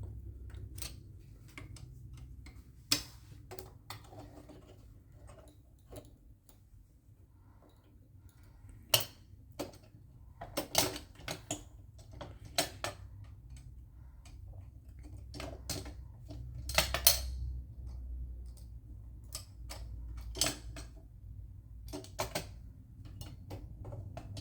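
Irregular metallic clicks, clinks and clacks of parts and tools being handled as a sewing machine is opened up, with a few sharper knocks about a third and two thirds of the way through, over a low steady hum.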